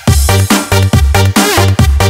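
Electronic dance music with a steady, heavy kick drum, about two beats a second.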